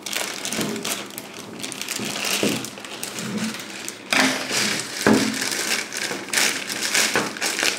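A shipping package being opened by hand: scraping, tearing and crinkling of tape, cardboard and plastic wrapping, with louder rips about four and five seconds in.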